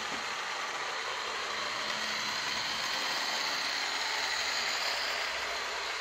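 Model train running on its track: two model electric locomotives' motors and the wheels of the locomotives and coaches rolling on the rails make a steady rushing hum. It grows a little louder about four seconds in as the locomotives pass closest.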